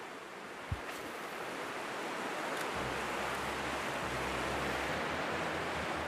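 Fast mountain river rapid rushing steadily, white water pouring over rocks, with a deeper rumble coming in about three seconds in. A single soft knock just under a second in.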